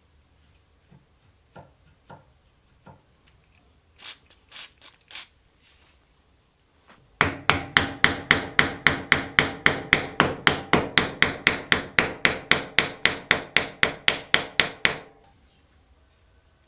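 A hammer beats rapidly and steadily on a wooden block held against a rusted antique revolver clamped in a vise: about four blows a second for some eight seconds, each with a short metallic ring. A few light clicks from handling the revolver's mechanism come before the blows.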